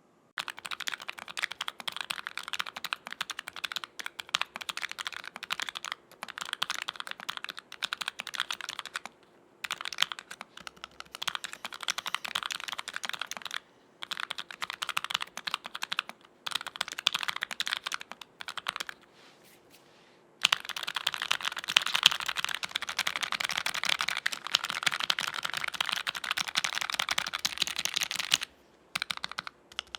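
Typing on a Keychron K3 Retro low-profile mechanical keyboard with Gateron low-profile KS-27 switches in an aluminium plate: rapid key clacks in runs of a few seconds with brief pauses, then a longer, faster, louder burst of typing in the last third.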